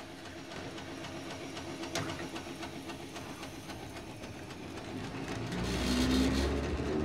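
Steady rumble of a train running on rails. A sharp click comes about two seconds in, and the rumble grows louder and deeper over the last second and a half.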